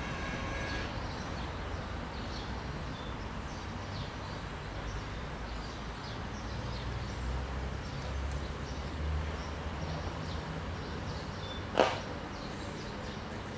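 Outdoor railway-station ambience: a steady low rumble with scattered faint bird chirps. A single sharp click about twelve seconds in is the loudest sound.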